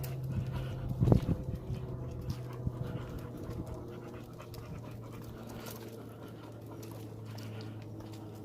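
American Staffordshire terrier panting, over a steady low hum, with a brief thump about a second in.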